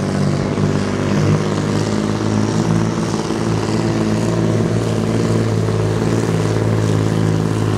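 Volvo FH truck's diesel engine running under full load at a steady pitch as it pulls a weight-transfer sled down the track.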